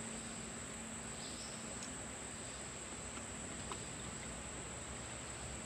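Steady high-pitched drone of insects, with a few faint clicks.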